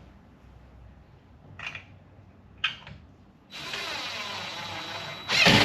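A power drill with a Phillips bit driving a screw into wood for about two seconds. It gets suddenly louder right at the end, just before it stops. A few light clicks of handling come before it.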